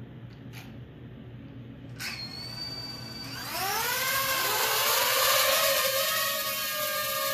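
A small electric motor starts with a thin high whine about two seconds in. About a second later it spins up with a rising whir, then settles into a steady high-pitched whine, as when a rotor is run for a lift test.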